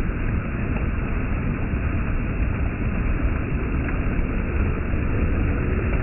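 Water rushing and churning over a low step in a concrete channel: a steady rush with a strong low rumble.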